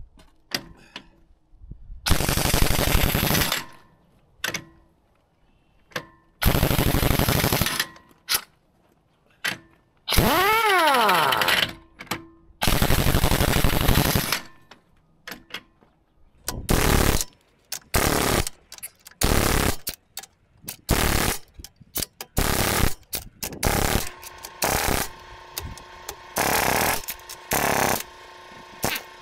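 Pneumatic impact wrench, fed with 200 PSI air, hammering the track roller mounting bolts tight on a D9G bulldozer track frame. It fires four long bursts of a couple of seconds each, then a run of short bursts about a second apart as it goes from bolt to bolt.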